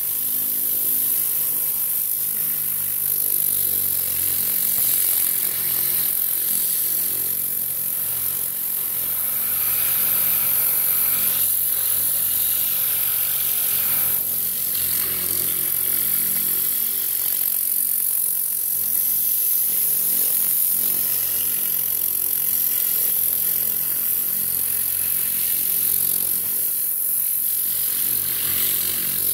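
Compressed air hissing steadily from a Tornador air-powered cleaning gun run at 90 PSI, blasting diluted all-purpose cleaner over an engine bay. The steady engine drone of the generator and air compressor runs underneath.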